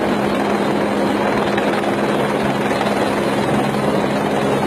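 Light helicopter flying low overhead: steady rotor and engine noise over a constant low hum.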